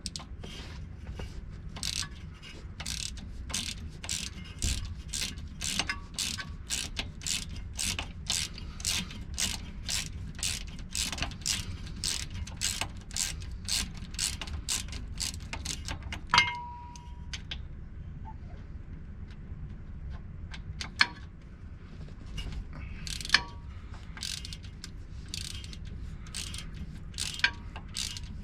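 Quarter-inch drive ratchet clicking steadily, about two clicks a second, as small bearing-cap bolts are backed out of a U-joint. About halfway through comes a sharp metallic clink with a short ring, then only occasional ratchet clicks.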